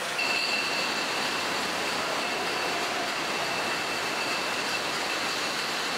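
Food-factory production line machinery and conveyors running: a steady mechanical noise with two high, steady whining tones that come in just after the start.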